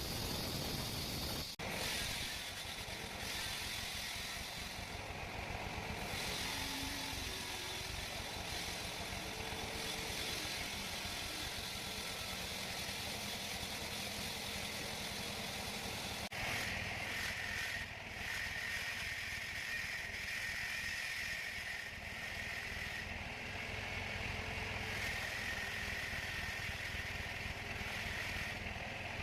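Sawmill machinery running with a steady mechanical noise. The sound shifts abruptly twice, and from about the middle a steady high whine runs on top.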